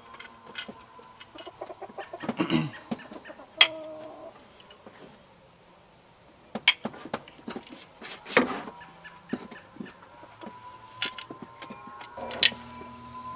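Chickens clucking in short, scattered calls, mixed with sharp metal clinks and knocks from a power window regulator and motor being handled against the door frame.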